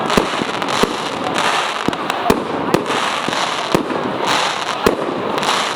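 Fireworks display: a continuous crackling hiss of burning effects, with about seven sharp bangs going off at irregular intervals.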